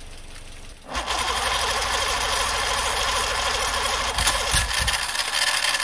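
Electric starter of a 1960s Evinrude outboard motor cranking the engine, starting about a second in, with a fast, even rhythm and a few louder knocks around four seconds in. The motor is being jump-started off a car battery on starting fluid and has not caught.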